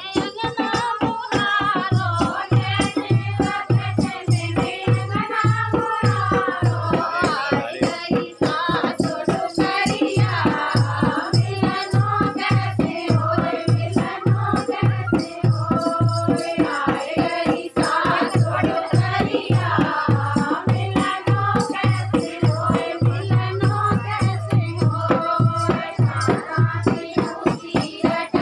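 Dehati folk song for dancing: a singing voice carrying a bending melody over a steady, regular drum beat, with a dense clicking, rattling rhythm on top.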